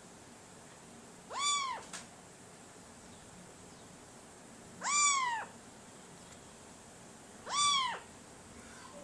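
Three meows, each about half a second long, rising and then falling in pitch, spaced about three seconds apart.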